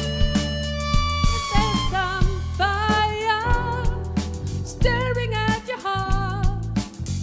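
A live band playing a soul-pop song: a steady bass and drum beat under a lead melody line with vibrato and pitch bends.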